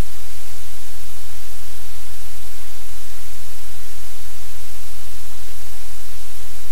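Loud, steady static hiss over a low, even hum, unchanging throughout.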